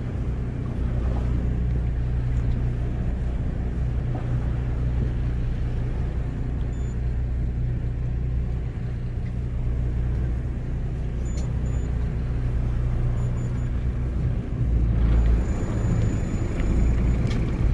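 Fishing boat's engine running with a steady low hum. The rumble grows louder near the end.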